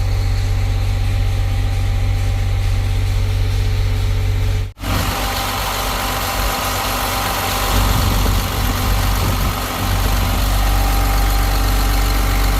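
Caterpillar 950H wheel loader's C7 diesel engine running steadily at idle. About four and a half seconds in the sound cuts out for an instant, then returns louder and fuller, rising and falling slightly for a few seconds before settling again.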